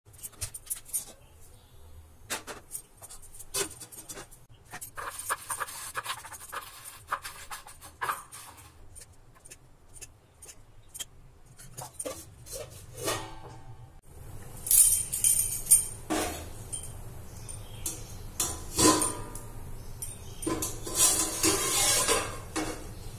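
Stainless-steel cookware clanking and clinking as an idli plate, a pan and its lid are handled on a gas stove, with bangles jingling now and then. The clanks are sharp and irregular, loudest in the second half.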